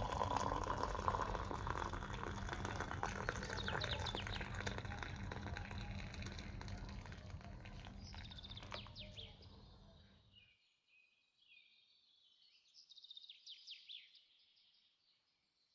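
Small birds chirping over a steady background noise. The noise fades and cuts off abruptly about ten seconds in, leaving a few faint chirps until near the end.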